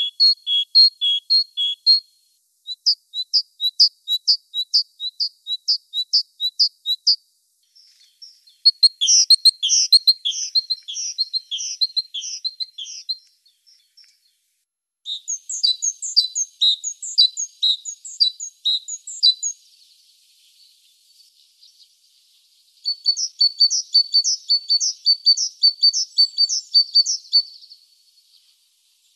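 Great tit singing: bouts of high, rhythmically repeated notes, each lasting a few seconds, with short pauses between them.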